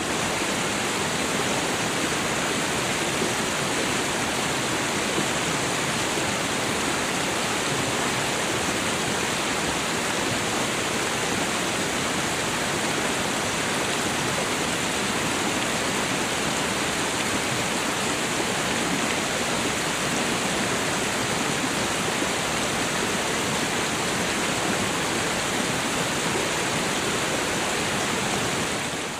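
Waterfall with thin curtains of water falling over a rock ledge onto rocks and a pool: a steady, unchanging rush of falling water.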